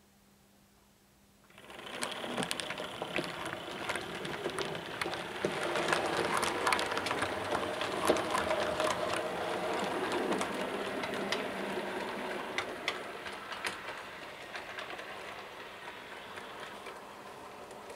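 Model 4MT Standard tank locomotive running on the layout track: a small electric motor whirring, with the wheels clicking rapidly over the rail joints. It starts up about two seconds in, is loudest in the middle, and gradually fades toward the end.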